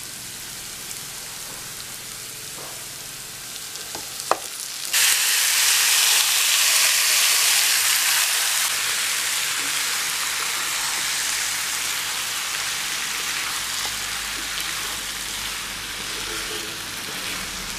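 Onions sizzling lightly in hot oil in a pan, a clink about four seconds in, then loud sizzling starts suddenly about five seconds in as marinated chicken hits the hot oil, easing off slowly while it is stirred.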